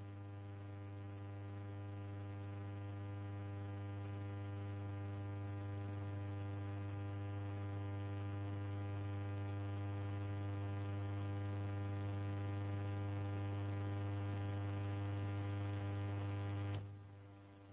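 Steady electrical hum, a deep buzz with many evenly spaced overtones, slowly growing louder and then cutting off suddenly near the end.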